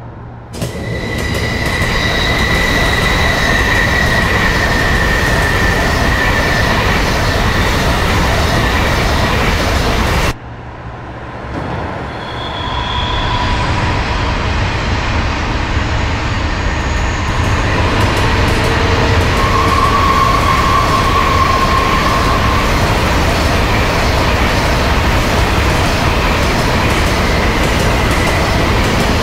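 Train running with a loud rumble and a high wheel squeal held for several seconds. It cuts off abruptly about ten seconds in, then builds up again with shorter squeals over the rumble.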